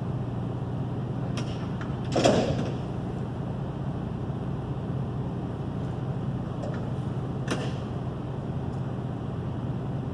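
Steady low machine hum, with a brief louder rush of noise about two seconds in and a few faint sharp clicks.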